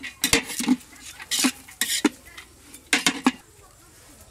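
Metal spatula scraping and knocking against a large aluminium pot as cooked rice is dished out onto a metal plate: a run of sharp clinks and scrapes that stops about three seconds in.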